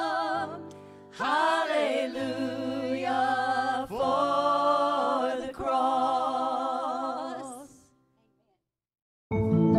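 Worship band and singers performing a contemporary worship song, long sung notes wavering with vibrato over steady low keyboard or bass notes. The singing fades out about eight seconds in, and after a brief silence new instrumental music starts near the end.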